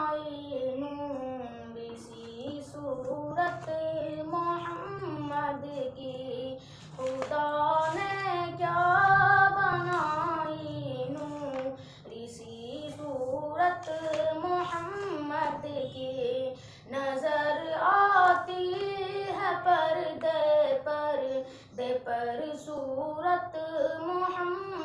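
A boy singing an Urdu naat unaccompanied, in long, high, ornamented phrases that waver and glide in pitch, with short pauses for breath.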